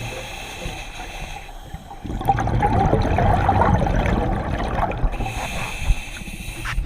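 Scuba diver's exhaled bubbles from the regulator, gurgling underwater, quieter at first and louder from about two seconds in.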